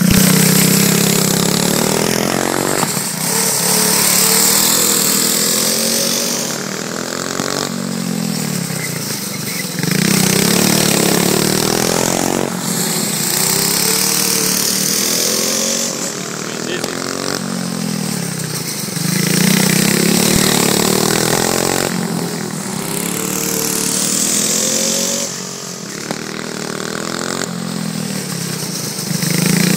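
Dirt go-kart engine running hard at speed, its pitch climbing as it accelerates and dropping as it backs off, over and over every few seconds.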